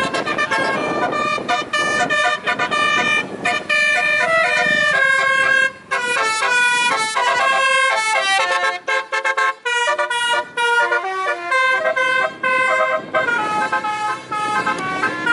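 Telolet horn, a multi-tone vehicle air horn, playing a fast tune of short stepped notes, several tones sounding together.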